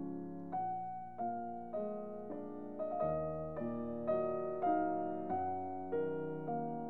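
Background piano music: notes and chords struck a little under twice a second, each fading before the next.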